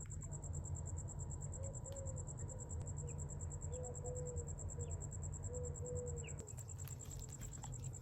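A cricket trilling steadily in a high, fast-pulsing tone, with a few short, soft low calls from chickens in the middle.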